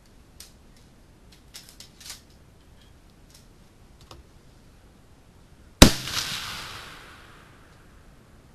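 A few light clicks of handling, then a single loud rifle shot about six seconds in, its report echoing and dying away over about two seconds.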